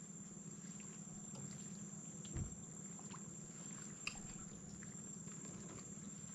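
Faint ambience: a steady high-pitched insect drone over a low hum, with scattered light ticks and one soft thud about two and a half seconds in.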